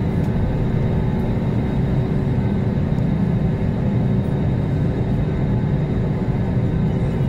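Airliner jet engines at taxi power heard inside the passenger cabin: a steady low rumble with a faint whine.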